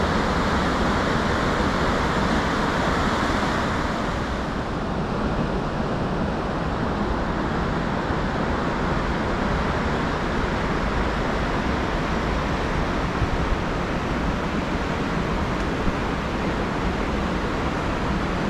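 Steady rushing of a fast, turbulent river running over rapids, a little duller after about four seconds.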